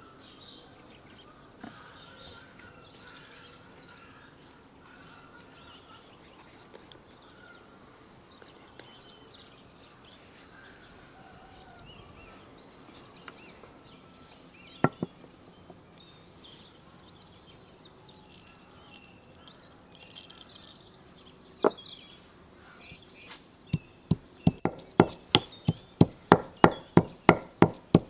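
Marble pestle pounding in a marble mortar: a fast, even run of sharp knocks, about three a second, starting near the end. Before it, birds chirp, with two single knocks in the middle.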